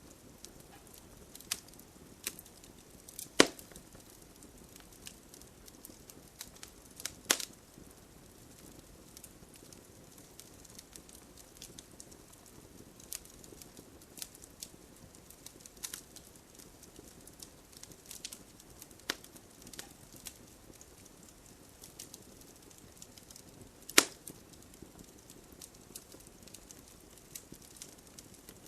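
Fire crackling: scattered small crackles over a soft hiss, with three loud pops, one a few seconds in, one about seven seconds in and one near the end.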